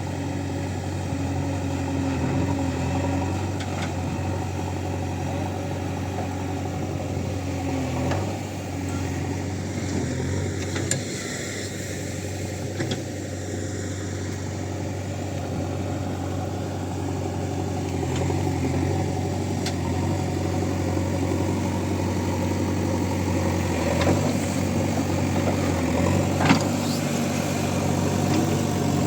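Backhoe loader's diesel engine running steadily under varying load, with a couple of sharp knocks near the end.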